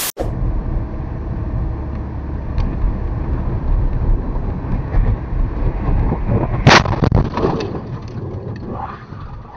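A brief burst of TV static, then a car's heavy low road and cabin rumble as it drives on an icy, snow-covered road. A single loud bang comes about two-thirds of the way through, followed by a few weaker knocks.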